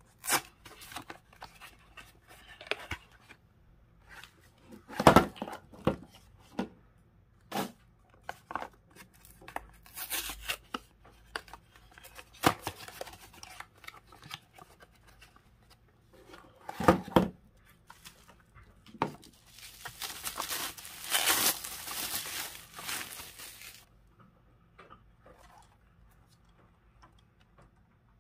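Cardboard box of chocolate eggs being torn open and handled: cardboard tearing and flaps scraping, with scattered sharp clicks and knocks. About twenty seconds in comes a few seconds of steady packaging rustle, and the last few seconds are quieter handling.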